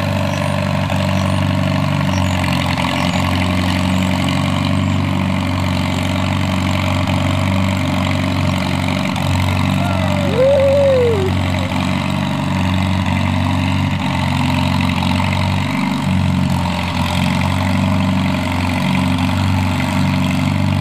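Farmall tractor's four-cylinder engine running steadily at low speed while it pulls a spring-tine harrow over loose soil. A short whistle-like tone rises and falls once about halfway through.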